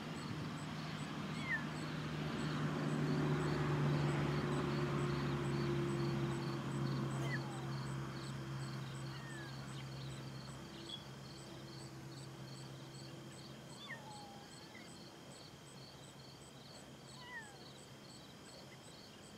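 Outdoor ambience: a distant motor hum swells and then fades away over the first half. Insects chirp in a steady high rhythm of about two pulses a second throughout, with a few short falling chirps scattered through.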